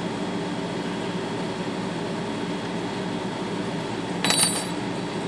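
Steady mechanical motor hum. About four seconds in there is a short burst of metallic clicking and clinking.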